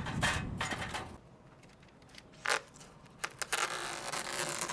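Rustling and rubbing of self-adhesive fiberglass mesh being handled and pressed onto EPS foam panels, with a short sharp tap about two and a half seconds in and a few clicks.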